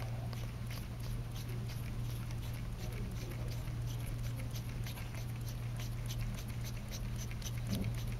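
Faint, irregular small ticks and rubbing as latex-gloved fingers turn the knurled rings of a differential micrometer head, over a steady low hum.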